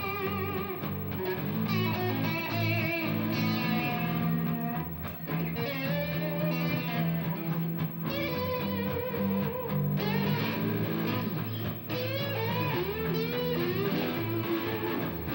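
Two electric guitars jamming together, one of them a Stratocaster-style guitar: a lead line with string bends and vibrato over sustained chords and low notes.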